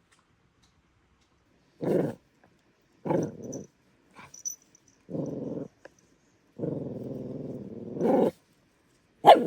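A dog growling in a series of short bursts, with one longer growl about two-thirds of the way through.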